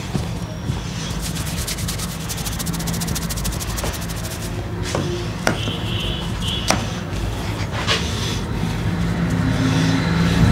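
Cloth towel rubbed briskly over a man's damp hair: a fast, scratchy rubbing for a couple of seconds, followed by a few light clicks, over a steady low hum.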